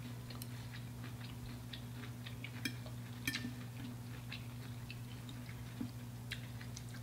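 Eating sounds: scattered light clicks and taps of metal forks against plastic food trays, with soft chewing, over a steady low hum.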